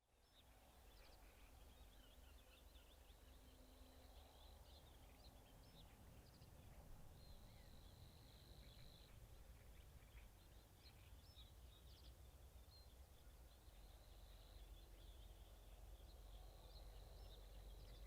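Faint bird chirps and calls, many short notes, with a few steady high notes lasting a second or two, over a low wind rumble.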